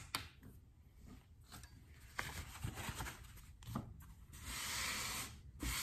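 Two sharp clicks at the start, then handling rustles and a longer rubbing rustle of a work glove being pulled on and adjusted, about four and a half seconds in.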